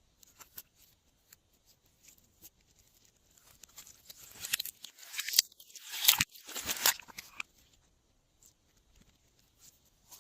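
Glossy slime being mixed by hand: scattered small clicks and crackles, building to a denser stretch of crunching and squishing from about four to seven seconds in.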